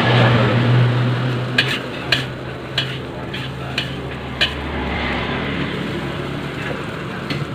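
Noodles frying in a hot wok, with a steady sizzle as a metal spatula stirs and tosses them. The spatula strikes the wok sharply about five times in the first half.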